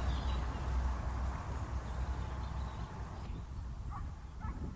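Quiet outdoor ambience with a steady low rumble, and a few faint, short animal calls near the end.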